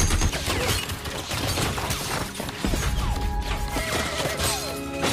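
Film battle sound: a hand-cranked Gatling gun firing rapidly while bullets smash into wooden buildings, splintering boards and breaking glass, over background music.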